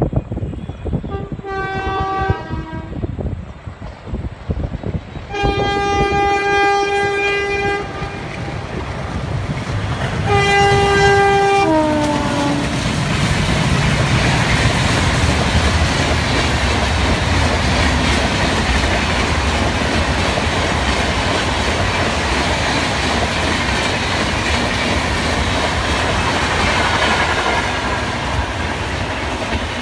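WAP-7 electric locomotive horn blown three times, short, long, then short, the last blast dropping in pitch as the engine rushes past. The LHB coaches then pass at about 130 km/h in a loud, steady rush of wheel and rail noise.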